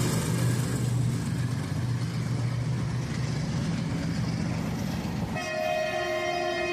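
WDG4G diesel locomotive passing, its engine chugging in a low steady drone over rail noise. About five seconds in, its horn starts honking again and is held as one steady blast.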